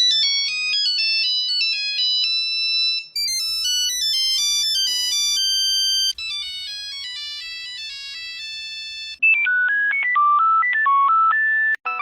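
A run of Nokia mobile phone ringtones, a new short electronic melody about every three seconds. The first three are high-pitched; the one from about nine seconds in is lower and buzzier.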